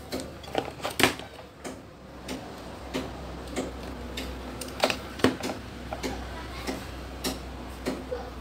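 Light, irregular clicks and taps, about one or two a second, of a meter's test probes touching solder joints on a CRT TV's circuit board and the analog meter being handled during in-circuit capacitor checks. A steady low hum runs underneath.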